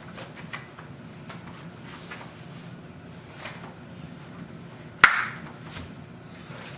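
Faint clicks and knocks from handling playpen parts, with one sharp, loud snap about five seconds in that rings briefly.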